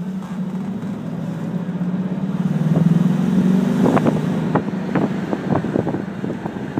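The 1986 Mercedes 560SL's V8 engine heard from inside the cabin while driving: a steady low drone that grows louder over the first three seconds as the car picks up speed. It then holds, with several short irregular knocks in the second half.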